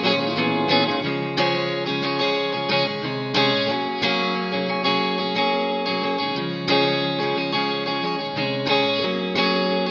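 Background music: a guitar-led track with plucked and strummed guitar chords in a steady rhythm.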